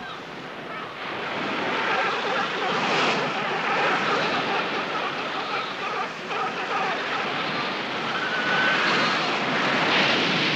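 Surf washing steadily over a Cape fur seal rookery, swelling and easing, with faint seal cries rising out of it now and then, one clearer about eight seconds in.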